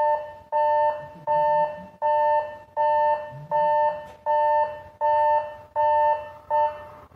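Railway level crossing warning bell ringing: a loud, evenly repeated two-tone electronic ding, about one and a half strikes a second, each one dying away. It stops near the end.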